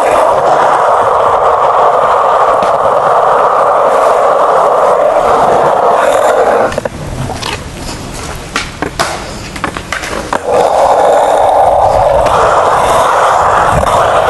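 Skateboard rolling over concrete on bare Hello ABEC 7 bearings with no wheels, a loud, harsh, steady grinding noise, very noisy because only the bearings touch the ground. It stops about seven seconds in, a few knocks sound in the quieter gap, and the grinding starts again some three and a half seconds later.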